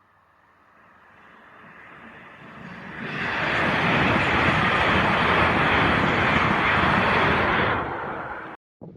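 A passing train: a rushing noise that builds over about three seconds, stays loud for several seconds, then eases and cuts off abruptly near the end.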